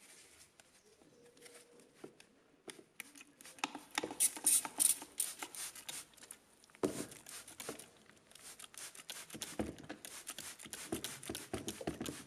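Scratching, scraping and clicking as a carbon-fouled EGR valve is handled and worked over a plastic tray, a dense run of short sharp scrapes from a few seconds in. The EGR valve is caked with a thick layer of carbon deposits.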